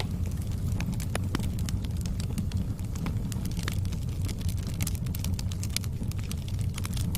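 Campfire crackling: frequent, irregular sharp pops and snaps over a steady low rumble.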